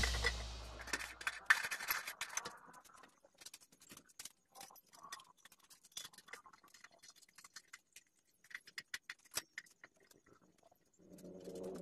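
Faint scattered clicks, taps and light scrapes of metal parts being handled while a fuel tank is fitted and fastened onto a steel motorcycle frame. The tail of loud rock music dies away over the first second or so.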